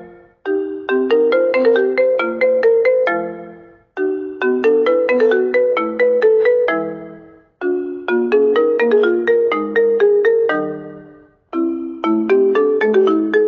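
Mobile phone ringtone playing for an incoming call: a short tune of quick notes that repeats about every three and a half seconds, with a brief break before each repeat.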